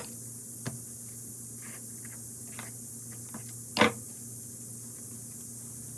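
A few light knocks against a steady hum and high hiss, the loudest knock about four seconds in.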